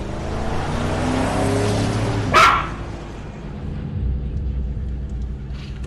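Logo intro sound effect: a swell of pitched tones over a low hum that builds for about two seconds, cut by one short, loud, sharp sound, then a low steady rumble.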